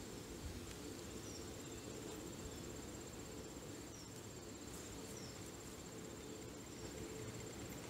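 Crickets trilling steadily in the background, a thin high, finely pulsed buzz, over low, even outdoor noise and a faint steady hum.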